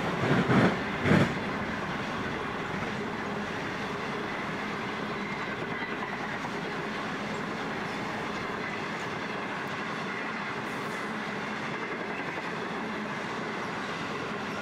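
Long passenger train rolling steadily along the track, with a few loud clanks in the first second or so, then an even rumble of the wheels on the rails.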